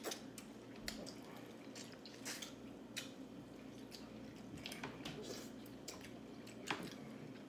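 Quiet wet eating sounds: chewing, and sauce-coated fingers peeling shrimp and crab shells, heard as scattered small clicks and squishes.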